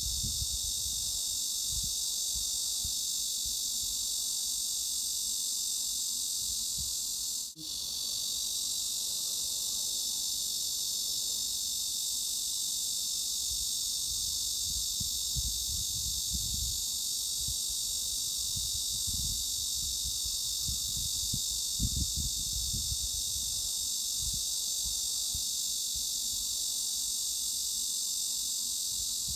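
Cicadas droning as a steady, high-pitched buzzing chorus, used as a tinnitus masking sound. It breaks off for an instant about seven and a half seconds in. Irregular low rumbles run underneath.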